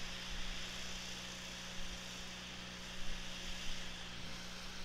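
A steady low hum over an even background hiss, with uneven low rumbles of wind on the microphone.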